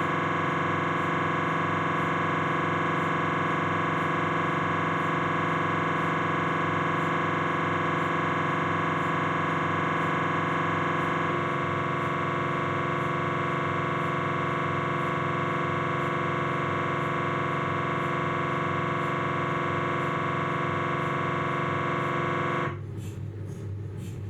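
Philips 1.5 T MRI scanner's gradient coils sounding during a T1-weighted coronal knee sequence: a loud steady tone of many pitches at once. The tone shifts slightly about eleven seconds in and cuts off abruptly near the end, as the sequence finishes, leaving a quieter background noise.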